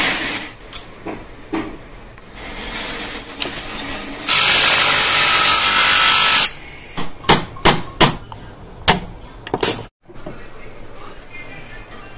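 Bench grinder grinding a small metal engine part for about two seconds. It is followed by a series of about seven sharp hammer knocks on metal at a bench vise.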